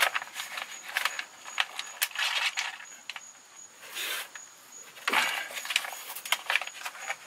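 Plastic squeeze pouch of automatic transmission fluid crinkling and clicking in the hand as it is squeezed into a transfer case fill hole, with a few short noisy rushes as the fluid is forced in.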